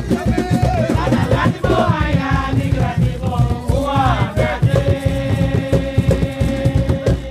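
Garifuna Jonkonnu (Wanaragua) music: a steady drum beat with rattles shaking and voices singing, then one long note held from about five seconds in until just before the end.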